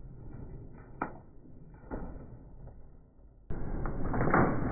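Debris from a washing machine blown apart by a firecracker falling back with a couple of light knocks. Then an abrupt switch to a train's steel wheel rolling onto a plastic toy race car on the rail: a steady rumble with a louder crack a little before the end.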